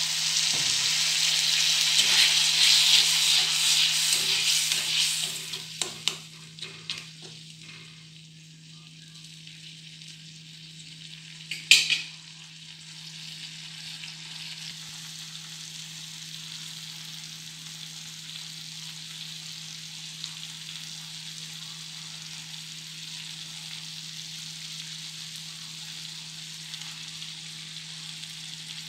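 Masala gravy sizzling loudly in a hot metal kadhai as freshly added water hits the oil, settling after about five seconds. A metal spatula then clinks and scrapes against the pan a few times, with one sharp clink near the middle, and the gravy keeps up a quieter, steady sizzling simmer.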